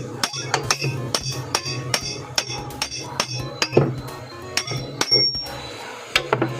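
Rapid hammer taps on metal, about five strikes a second with a ringing after each, with a louder clang about four seconds in, a short pause, then a few more taps near the end. The blows are working loose a stuck part of a washing machine's clutch assembly.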